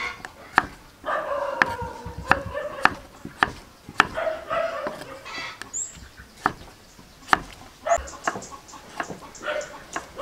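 Kitchen knife chopping green papaya on a wooden chopping board: sharp knocks, about one or two a second. Between the chops, an animal gives several drawn-out calls that fall slightly in pitch.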